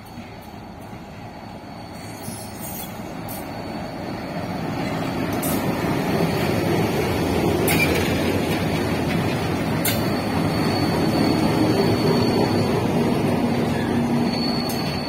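Twin ALCO WDG3A diesel locomotives, each with a 16-cylinder ALCO 251 engine, approaching and passing close by at the head of a freight train. The rumble grows steadily louder, with a few sharp clicks from the wheels over the rail joints. A thin high squeal from the wheels on the curve comes in about two-thirds of the way through.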